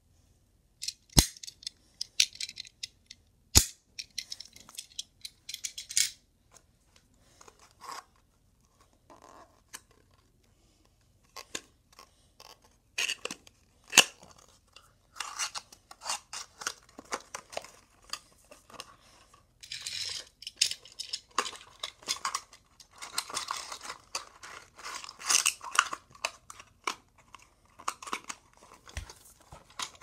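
Hands handling small die-cast toy cars and a cardboard toy box: a few sharp clicks in the first seconds, then a long stretch of rustling and scraping of cardboard in the second half.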